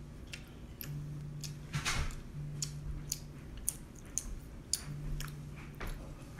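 A child eating rice cakes from a paper cup: scattered small clicks and ticks of chewing and a fork against the cup, with a low hum coming and going in stretches of about a second.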